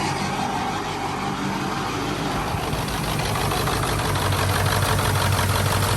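Ford 7.3 L Powerstroke turbo-diesel V8 idling steadily. The owner says it runs on only six or seven of its eight cylinders because of broken injector harness connectors.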